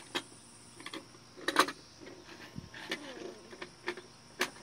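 Plastic toy trucks clicking and knocking against each other and the wooden deck boards as a child plays with them: a handful of sharp separate knocks, the loudest pair about a second and a half in.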